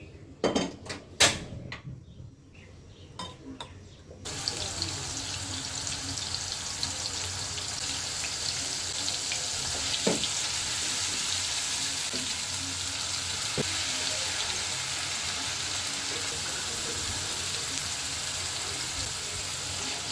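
A few sharp knocks of kitchen utensils, then, about four seconds in, food starts sizzling in hot oil in a pan: a steady, loud crackling hiss that goes on without a break.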